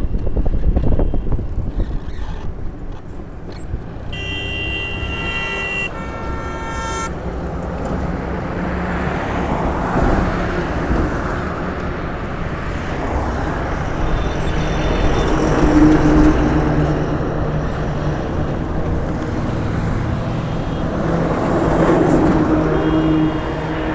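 Motor vehicle running along a road with engine rumble and road noise, and a vehicle horn honking twice in a row about four seconds in.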